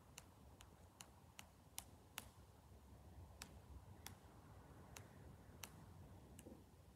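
Near silence with about a dozen faint, sharp clicks at irregular spacing: fingers tapping on a device while setting up music to play.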